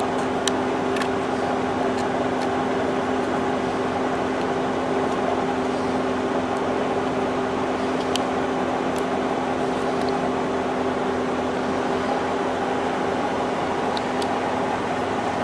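A steady mechanical hum with a constant low drone, like a motor-driven fan or air-conditioning unit running, with a few faint light ticks scattered through it.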